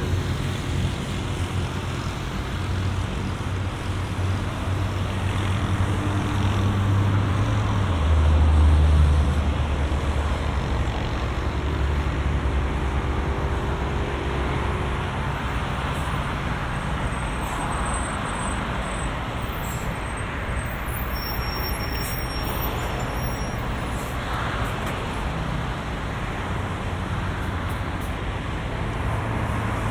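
Traffic on a multi-lane city avenue: steady road noise and engine hum from passing cars and motorbikes. A heavier vehicle passing about eight seconds in is the loudest moment.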